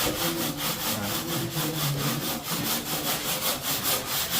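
Hand saw cutting through a wall panel with quick, even strokes: a steady rhythmic rasping.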